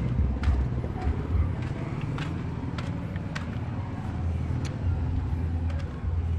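Footsteps of someone walking on a concrete street, about one step a second, over a steady low rumble of traffic or an engine.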